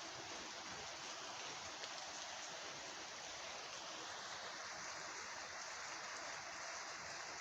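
Light rain shower falling: a steady hiss of rain with a few faint drop ticks.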